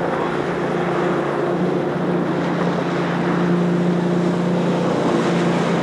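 Ski boat's engine running at speed, a steady drone, with the hiss of water spray as it tows a slalom skier; it grows a little louder about halfway through as the boat passes close.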